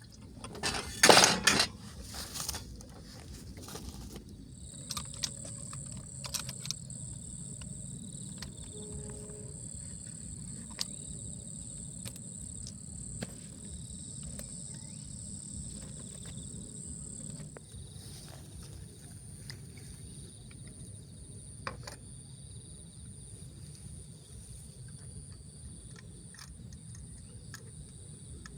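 Insects trilling in one steady high-pitched note that holds on unbroken, with scattered light clicks and knocks. A loud brief noisy rush comes about a second in, before the trill starts.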